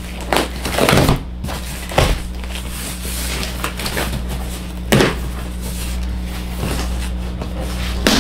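Cardboard packaging of a laptop shipping box being opened and handled: a few sharp knocks and rustles, the loudest about a second in and again near five seconds, over a steady low hum.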